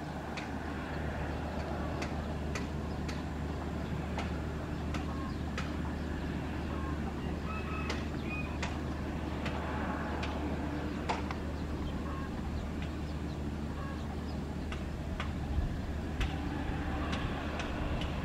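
Steady hum of a Bombardier CRJ1000's rear-mounted jet engines as it rolls along the runway after landing, with a few short bird calls and scattered sharp clicks over it.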